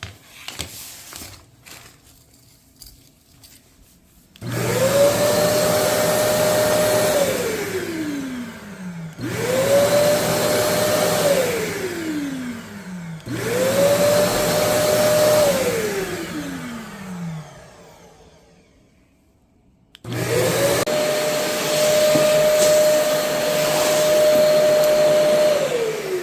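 Kärcher vacuum cleaner switched on and off four times: each time the motor whine climbs quickly to a steady pitch, runs for a few seconds, then falls away as the motor coasts to a stop. The last run is the longest and is still winding down at the end.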